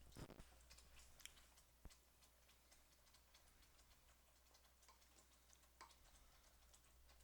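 Near silence: quiet room tone with a faint steady low hum and a few faint, scattered clicks and taps.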